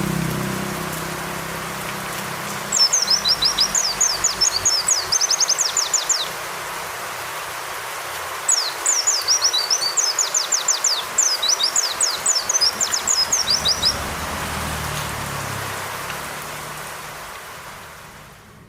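A white-eye (pleci) singing two long phrases of rapid, high, downward-slurred notes over a steady hiss of rain; the rain fades out near the end.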